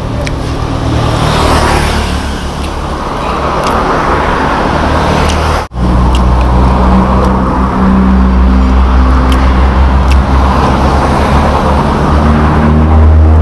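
Motor vehicle engines running loud and close, a deep steady engine hum with road traffic noise that grows louder over the second half. The sound breaks off for an instant about halfway through.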